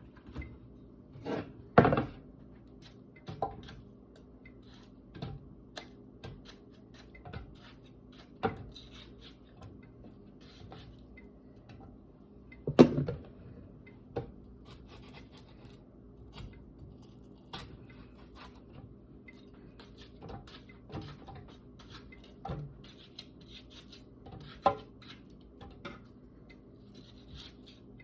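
Scattered knocks and clatter of dishes and kitchen utensils being handled during food preparation, loudest about two seconds in and about halfway through, over a faint steady hum.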